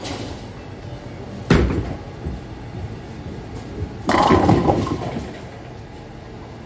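A bowling ball lands on the wooden lane with a thud about a second and a half in, then rolls. About four seconds in it hits the pins, which scatter with a loud clattering crash, all over the general noise of a bowling alley.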